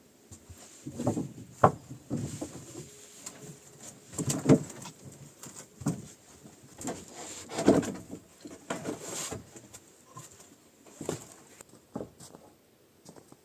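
Irregular knocks, scrapes and rustling of things being handled and moved, some sharper than others, with no steady rhythm.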